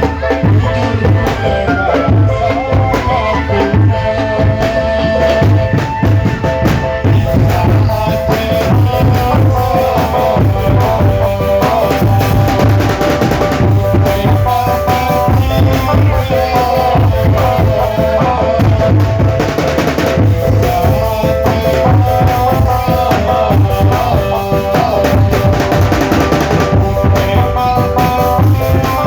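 Drum band playing: regular bass drum beats with snare drums over a continuous melody.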